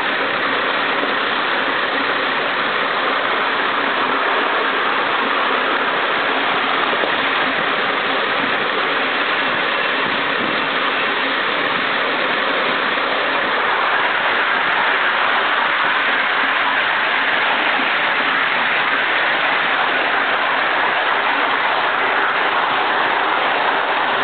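Gresley O1 2-8-0 steam locomotive giving off a steady, unbroken hiss of steam, with no exhaust beats.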